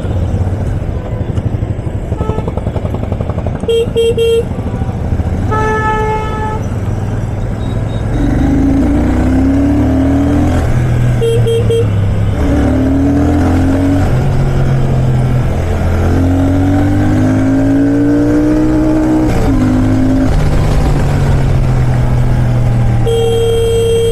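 Royal Enfield Shotgun 650's parallel-twin engine pulling away and accelerating through several gears, its pitch rising and dropping back at each shift. Vehicle horns sound in the traffic: short beeps in the first half and a long honk near the end.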